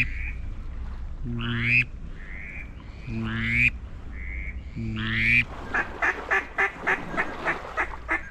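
Hunter's duck call blown as mallard hen quacks: four drawn-out quacks with rising pitch about two seconds apart, then a quick run of about a dozen short quacks that trail off, a greeting call to bring a circling duck back over the decoys.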